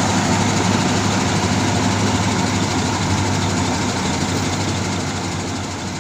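Heavy diesel engines of bulldozers and a logging truck running steadily under load, with a strong low hum. The sound starts to fade about five seconds in.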